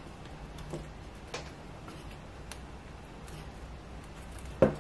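Thin wooden model-kit pieces giving a few light, irregular clicks and taps as a long piece is worked through the slots of the layered wooden spine, with a sharper knock near the end.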